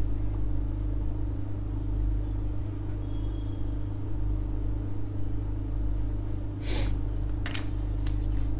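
Steady low hum of a room appliance or electrical mains, holding a few fixed low pitches, with two brief hissy noises about seven seconds in.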